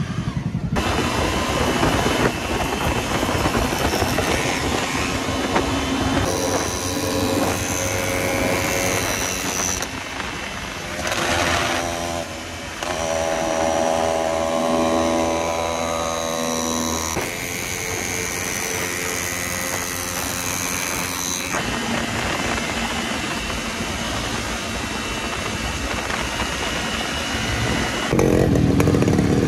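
Honda CBR250R's single-cylinder engine running at road speed. The sound changes abruptly several times, and its pitch holds steady for a few seconds near the middle.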